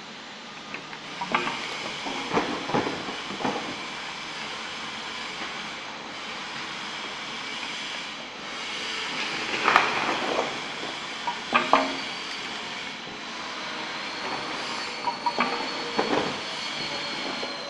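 Liquid filling machine for small bottles running, a steady mechanical noise broken by irregular clicks and clatters, with a thin high whine coming in near the end.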